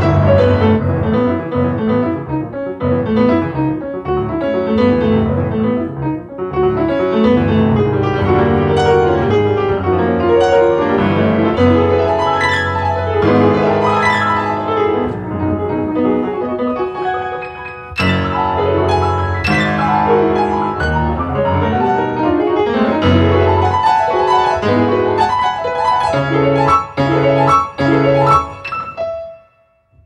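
Solo grand piano playing a fast, busy passage of notes. Near the end comes a run of loud repeated chords, then the playing stops.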